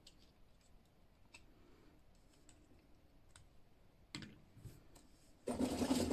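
Faint clicks and taps of a small plastic toy figure being handled, with a sharper click about four seconds in. Near the end, a louder stretch of rustling and plastic clatter as toys on the table are rummaged through.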